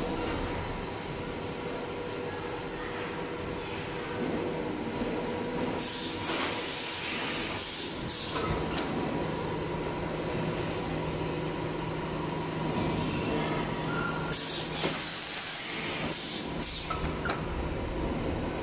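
DPP-550 plastic thermoforming machine running: a steady machine hum with a constant high whine, broken by pairs of short pneumatic air releases, about two seconds apart, roughly every eight seconds as the forming station cycles.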